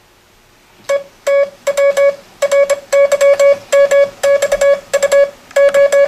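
Morse code playing as a steady beeping tone from a ham keyer's sidetone, keyed on and off by a hand-cranked Instructograph reading punched paper code tape. Short and long beeps (dits and dahs) start about a second in and run in quick groups.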